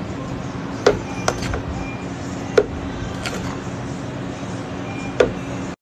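Matcha powder scoop knocking against the plastic blender pitcher and the powder container as scoops of powder are added: about five sharp clicks spread over a few seconds, over a steady low hum.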